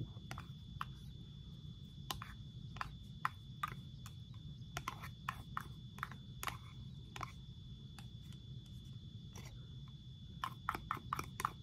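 Clear plastic fork clicking and scraping against a tuna cup as tuna is dug out onto a paper plate: a string of light, irregular clicks over a steady low hum and a faint steady high tone.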